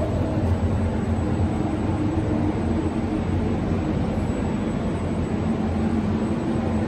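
Steady, unchanging drone of air blowers keeping a walk-in inflatable plastic installation inflated: a constant low motor hum under a rushing-air noise.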